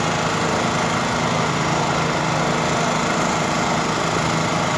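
A small engine running steadily: a constant hum that holds the same pitch throughout.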